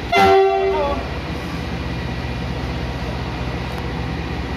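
A short train horn blast of under a second, sagging slightly in pitch as it ends. It is followed by the steady low rumble of the CC 300 diesel locomotive's engine as it moves in slowly to couple.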